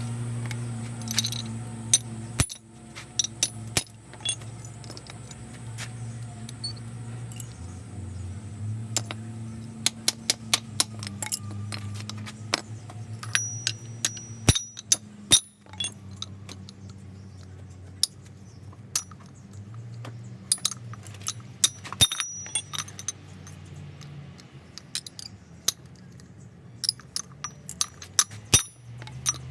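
Metal tools and parts clinking and tapping in many short, sharp clicks, irregularly spaced, over a steady low hum.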